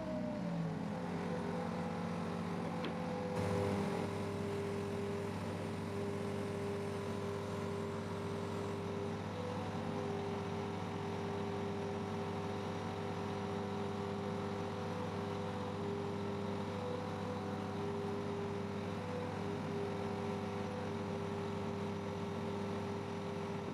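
A heavy machine's engine running steadily with a constant drone; its pitch drops in the first second, as if it is throttling back, and then holds.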